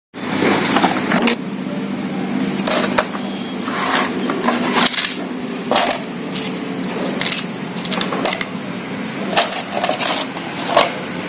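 Irregular short taps and rustles as flat cardboard novelty firecrackers are handled and laid on a concrete floor, over a steady low background hum.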